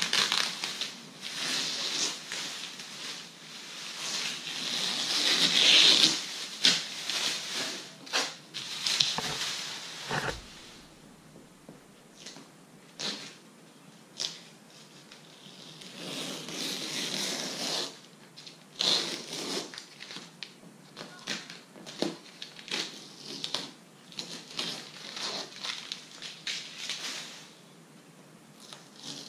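Masking tape being peeled off and plastic masking sheet being pulled away, with irregular crinkling and tearing and a quieter stretch about midway.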